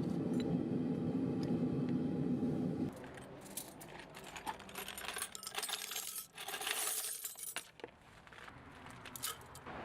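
A steady low rumble that cuts off abruptly about three seconds in, followed by pieces of scrap metal clinking and jangling against each other in quick clusters of clicks.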